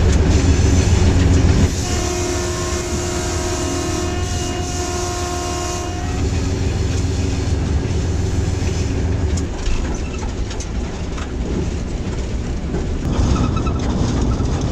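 Hitachi HBU-20 diesel-electric locomotive under way, its engine and wheels rumbling steadily in the cab. The locomotive's multi-tone horn blows one long steady blast of about four seconds, starting about two seconds in.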